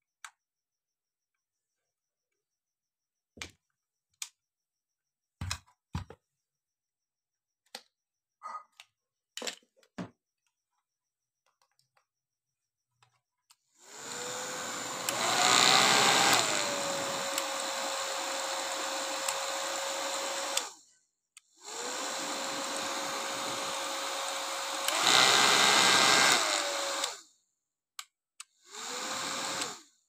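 National hand-held hair dryer switched on and run in three spells, its fan whirring with a steady whine that jumps higher and louder for a second or two before dropping back; the first two runs are cut off after several seconds, the third is short, near the end. Before it, in the first half, small clicks and taps of the plastic casing being handled.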